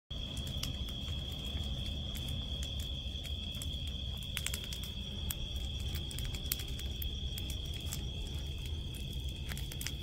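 A brush-pile bonfire crackling, with scattered sharp pops and a steady low rush underneath, over a continuous high-pitched trill of night insects.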